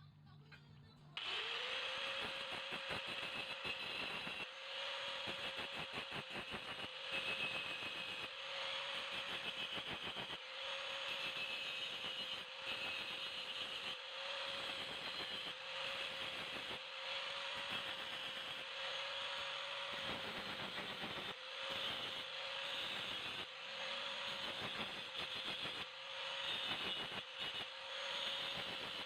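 Electric angle grinder starting about a second in, spinning up to a steady whine and running on with a harsh rasping noise as it grinds the steel of an old saw blade into a blade.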